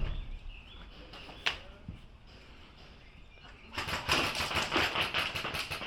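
A thump, then a single sharp click about a second and a half in. From about four seconds in comes a fast run of sharp cracks, about ten a second: an airsoft rifle firing on full auto.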